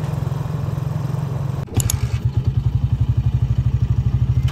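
Small motorcycle engine of a Philippine tricycle (motorcycle with sidecar) running on the move, a steady low drone. About two seconds in, after a brief clatter, it turns to a fast, even putter of the engine firing.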